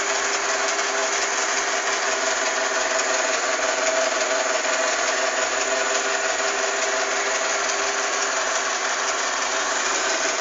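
Sharp Cocorobo robot vacuum cleaner running: a steady motor whir with a couple of held tones over an even hiss of suction and brushes.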